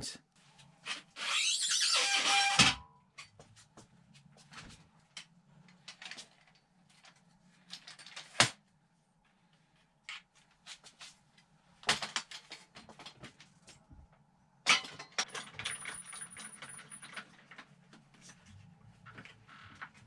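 Clatter of a folding bicycle repair stand being set up and a mountain bike lifted and clamped onto it: a loud burst of noise lasting about two seconds near the start, then scattered sharp clicks and knocks of metal parts.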